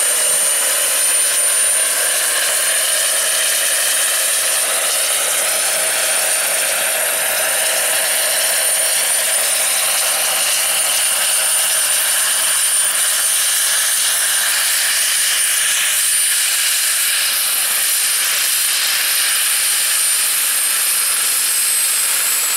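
Model gas-turbine engine and rotors of a radio-controlled scale Bell 206B JetRanger III helicopter running: a steady high-pitched turbine whine over the rotor noise. Near the end the whine falls slightly in pitch as the helicopter sits on the ground.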